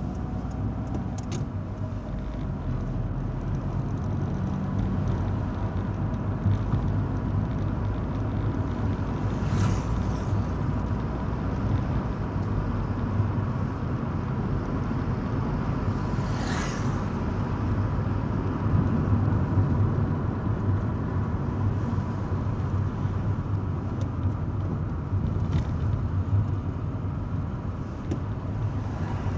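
Driving noise heard from inside a car's cabin: a steady low engine and tyre rumble, with two brief hissing rushes about ten and sixteen seconds in.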